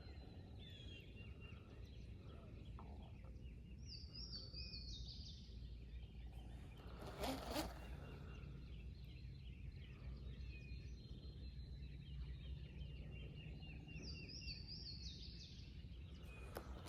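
Quiet outdoor ambience with a songbird singing: a quick run of high, stepped notes twice, about ten seconds apart, among fainter chirps. There is a brief rushing noise about seven seconds in.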